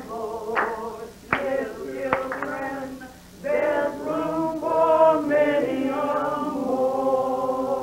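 A small group of men and women singing together unaccompanied, led by a woman. Hand claps sound in time during the first two seconds or so, then the voices hold long sung notes from about three and a half seconds in.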